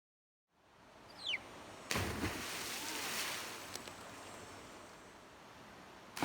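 Steady rush of falling water from a waterfall. It cuts in suddenly about two seconds in and slowly gets quieter after that. A brief high falling whistle comes just before it.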